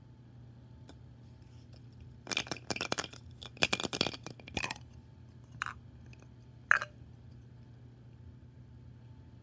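Small toys and their wrapping being handled and opened by hand: a quick flurry of crackling, snapping clicks for about two seconds, then two separate single clicks.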